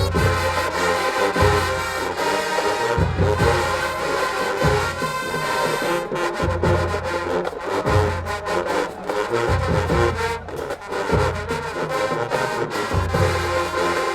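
Marching band playing, brass-heavy, with a deep low line in long held notes.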